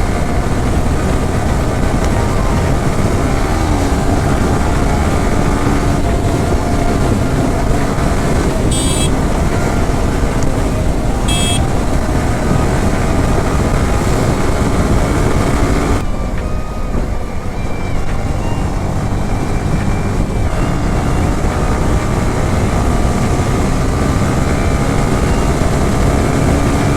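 Motorcycle engine running while being ridden at speed, heavily mixed with wind rush on the microphone. There are two short high-pitched sounds, about 9 and 11.5 seconds in, and the sound dulls for a few seconds from about 16 seconds in.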